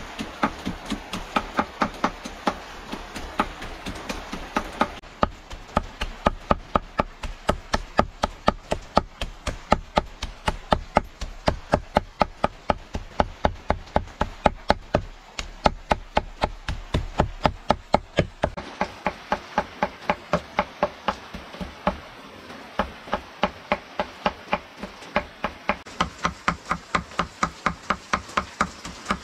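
Rapid, even chopping: a knife or cleaver striking a wooden cutting board about three to four times a second, in several stretches joined by edits.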